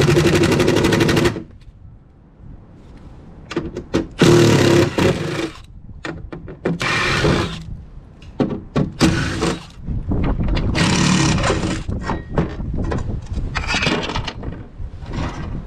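Cordless impact driver running in several short bursts with a rapid hammering buzz, backing out screws to take off a boat compartment door, with clattering of handling between the bursts.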